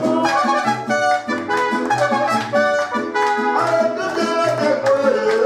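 Mariachi band playing an instrumental passage: a melody line over chords and a steady, repeating bass note, with no singing.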